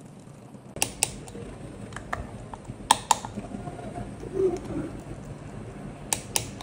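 Precision torque screwdriver tightening tiny fixing screws into a phone's internal frame to a set torque. Sharp clicks come in three pairs: about a second in, about three seconds in, and near the end.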